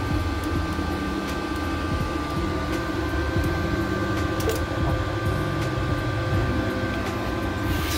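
TIG welder running an arc at about 50 amps on a thin 18-gauge steel two-stroke expansion chamber: a steady electrical hum and hiss with two constant high-pitched tones.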